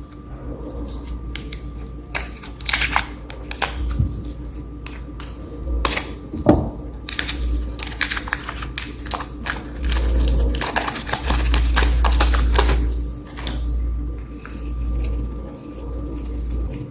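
Clusters of rapid clicking and tapping over a steady low rumble, with one louder knock about six and a half seconds in.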